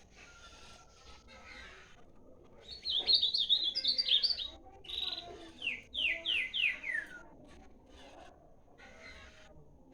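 A bird singing: about three seconds in, a loud burst of rapid, high chirps, then a run of about five quick notes that each slide steeply downward in pitch, over in about four seconds.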